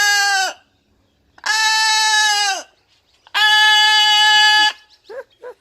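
Pet macaw giving three long, loud, steady calls about a second each, each dropping in pitch as it ends, followed by a few short chirps near the end.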